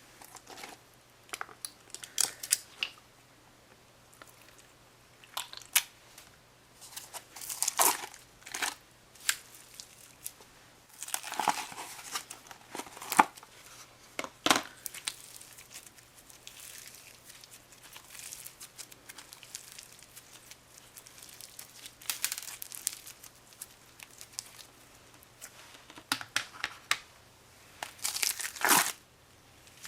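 Old, dried-up crunchy slime squeezed and pulled by hand: irregular crackling and crinkling in clusters, with short pauses between.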